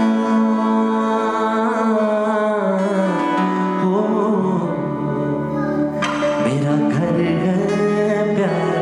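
Hindi/Urdu Christian worship song: a singer draws out long, ornamented notes over steady instrumental backing.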